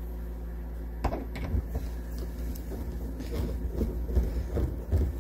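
Irregular knocks, clicks and rattling of an RV cabinet door and its hinge hardware being handled and fitted, over a steady low hum. The loudest knock comes about a second in, and the clatter grows busier toward the end.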